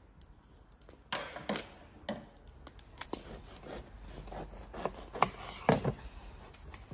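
Knife cutting through a crusty round loaf of bread on a wooden board: crunching and scraping of the crust with irregular knocks of the blade on the board, the loudest near the end.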